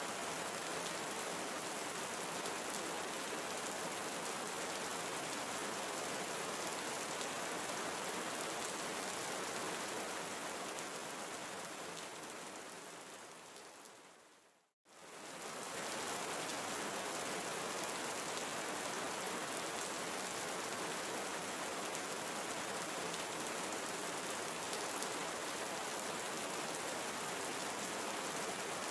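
Steady tropical forest rain, an even hiss of drops. About halfway through it fades gradually down to a brief silence, then swells quickly back to the same steady level.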